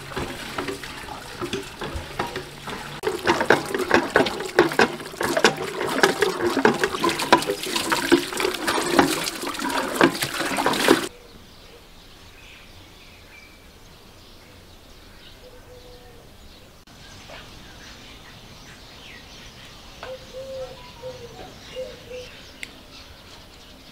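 Water from a garden hose splashing onto a raw chicken as it is rinsed, loud and continuous for about the first eleven seconds, then cut off suddenly. After that a much quieter outdoor background with a few faint bird calls.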